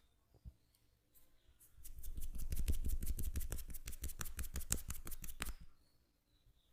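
Rapid percussive hand tapping on the head during a head massage: a fast, even run of sharp slaps, about nine a second, starting about two seconds in and stopping after about four seconds.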